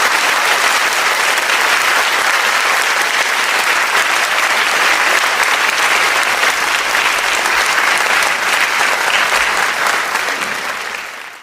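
Applause: dense, steady clapping that fades out near the end.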